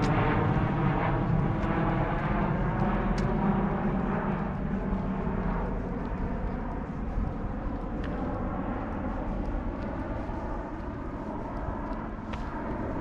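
A distant engine's steady hum, fading slowly as it moves away.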